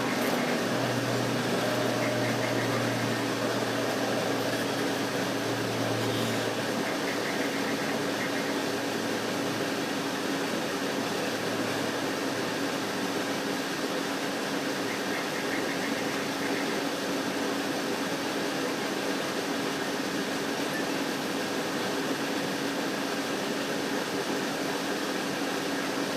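Steady machine-like hum with an even hiss, unchanging throughout, of the kind a fan or air conditioner makes.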